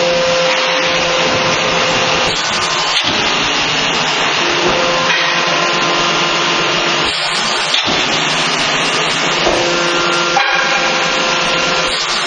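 Hydraulic cutting machine running: a steady whir from its motor and hydraulic pump, with faint whining tones that come and go every few seconds.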